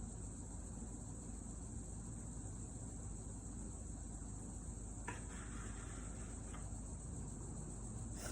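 Steady high-pitched drone of insects chirring through the whole stretch, with a brief scraping noise of about a second and a half, some five seconds in.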